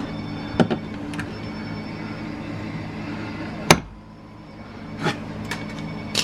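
A screwdriver prying at a stuck plastic door-panel retaining clip: scattered sharp clicks and knocks, with one loud snap a little past halfway. A steady low hum runs underneath and drops away briefly after the snap.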